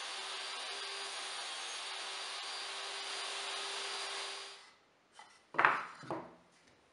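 Table saw running and cutting plywood in a crosscut sled, a steady whine with a hum beneath it that cuts off about four and a half seconds in. Then a few knocks of plywood pieces set down on a wooden workbench, the loudest about five and a half seconds in.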